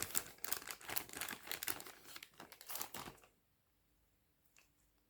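Plastic bag of finger cots being handled, crinkling and crackling for about three seconds before it stops, followed by a couple of faint ticks.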